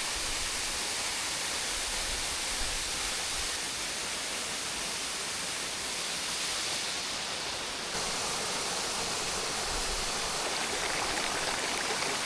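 Waterfall pouring over rocks: a steady rush of falling water.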